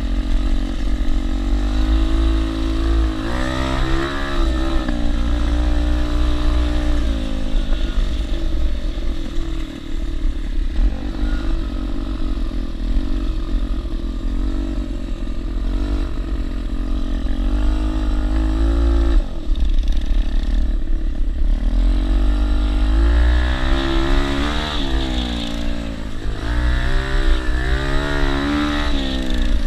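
ATV engine under way on a dirt trail, revving up and down repeatedly as the throttle is worked, its pitch climbing and dropping several times. A heavy low rumble of wind on the microphone runs under it.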